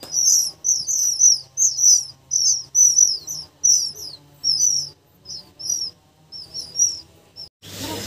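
Oriental magpie-robin nestlings begging for food, a rapid series of high, thin chirps about two or three a second from the hungry brood. The calls thin out and grow fainter over the last few seconds, then stop abruptly near the end.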